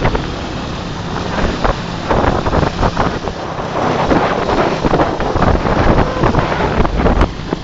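Wind buffeting the microphone of a moving motorcycle tricycle, over a low rumble of engine and road.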